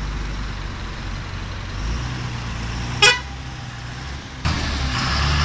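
Bus engine running with a steady low rumble, with a short horn toot about three seconds in. The engine noise grows louder suddenly about four and a half seconds in.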